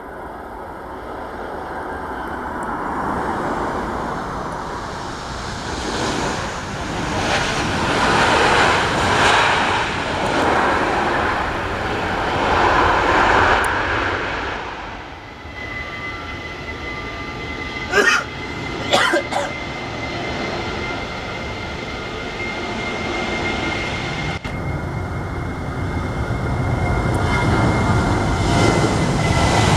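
Airliner engines passing close by: a rushing noise swells and falls in waves, then a steady high whine holds while a deep rumble builds near the end. A few sharp clicks come about halfway through.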